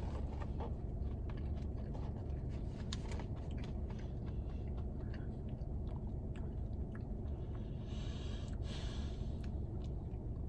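A person chewing a breaded spicy chicken fry, with small crunches and wet mouth clicks.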